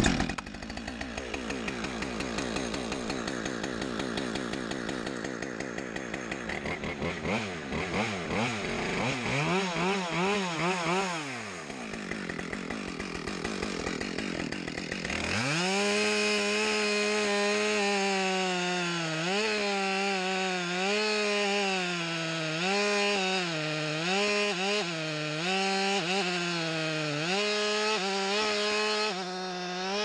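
Husqvarna two-stroke chainsaw running just after starting, its throttle blipped up and down a few times, then held at full throttle from about halfway as it cuts into the base of a tree trunk, the engine pitch dipping and recovering over and over under the load of the cut.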